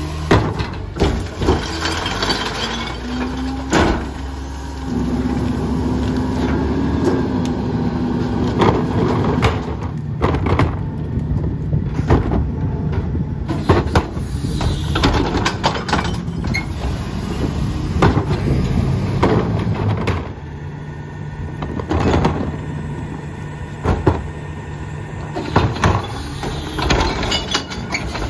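Garbage truck's engine and hydraulics running steadily while the McNeilus rear loader's cart tipper lifts and empties recycling carts, with repeated sharp bangs and clatter of carts striking the tipper and recyclables falling into the hopper.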